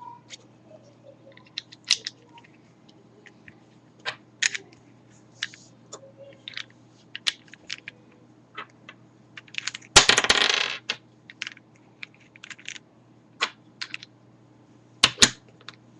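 Plastic pieces of a stickerless 3x3 Rubik's cube clicking and snapping as edges and corners are fitted onto the core during reassembly. About ten seconds in comes the loudest sound, a short clattering rattle of plastic pieces.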